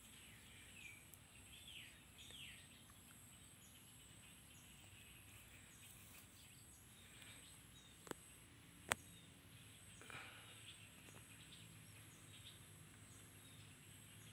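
Faint rural ambience: a steady high insect drone with a few short bird chirps in the first few seconds. About eight and nine seconds in come two sharp clicks, the second louder, and a light rustle of dry straw follows as a hand works around a straw mushroom in the bale.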